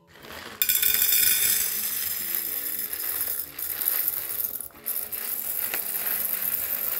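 Roasted coffee beans pouring from a paper bag into an MHW-3Bomber stainless steel canister, a dense clatter of beans against the metal and each other that starts about half a second in and briefly eases twice.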